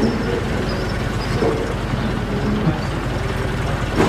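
A stationary vehicle's engine idling steadily, with a sharp knock about four seconds in.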